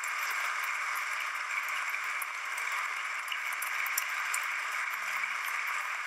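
Members of Parliament applauding: steady clapping from a large standing crowd, holding at an even level throughout.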